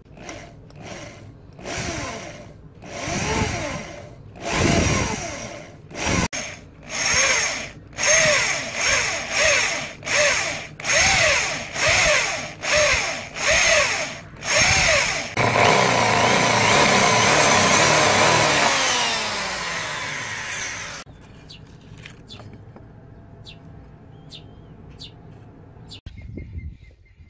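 Electric drill boring a hole through the steel tang of a knife blade. The motor is pulsed in short bursts a bit under a second apart, each rising and falling in pitch, then it runs steadily for about five seconds and cuts off suddenly.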